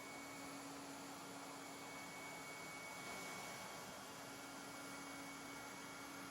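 Faint steady hum over a constant hiss: a low tone and a higher, thinner tone held level, the low one fading out for a moment midway.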